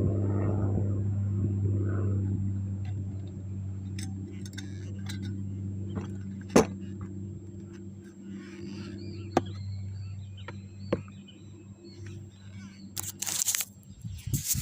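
An engine droning steadily and slowly fading away, with a few sharp clicks, the loudest about halfway through, and a brief rustle near the end.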